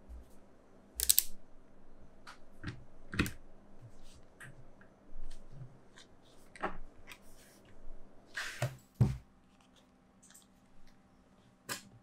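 Small magnetic balls clicking and clacking as slabs of them are handled and pressed onto a magnetic-ball build: scattered sharp clicks with short rustles between, the loudest about a second in and again near nine seconds.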